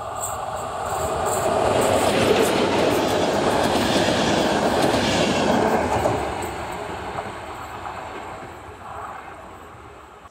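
Passenger train hauled by a Škoda 'laminátka' electric locomotive passing close by, wheels clattering over the rails. It swells to its loudest about 2 s in, holds for about four seconds, then fades as the train runs away.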